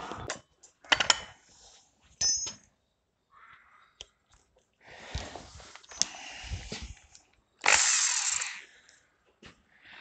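Scattered clicks and knocks of parts and tools being handled against the car's steel body panel, then near the end a burst of about a second from a cordless drill fitted with a hole saw, run briefly before the cut.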